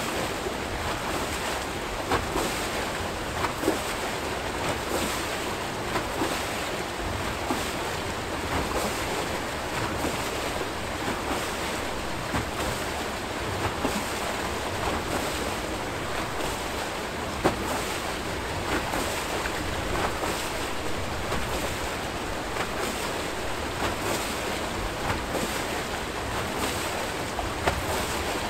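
Water rushing and churning out of the bottom of a turning Archimedes screw hydroelectric turbine. It is a steady roar with a few brief, sharper splashes.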